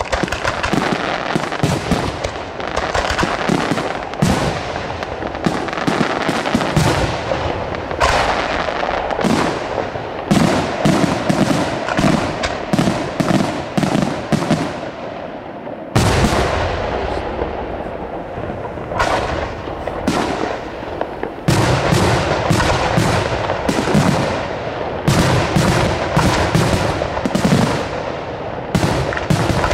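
Aerial firework shells bursting in a rapid barrage, several bangs a second over a steady crackling hiss. Especially heavy bangs hit about halfway through and again about two-thirds of the way through.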